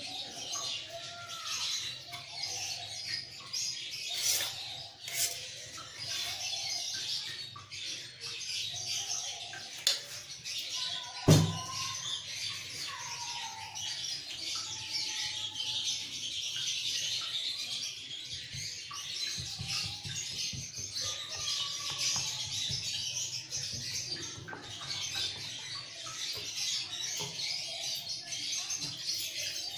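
Birds chirping steadily in the background, with a single sharp knock about eleven seconds in.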